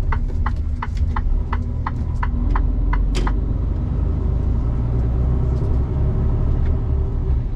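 Semi-truck's turn-signal indicator ticking about three times a second over the low rumble of the diesel engine, heard from inside the cab. The ticking stops about three seconds in and the engine runs on.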